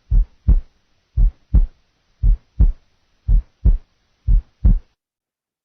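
Recorded heartbeat played as an auscultation example of paradoxical splitting of the second heart sound, in the inspiration phase where the second sound is single. Five lub-dub beats, a first and second sound about a third of a second apart, at about one beat a second, stopping near the end.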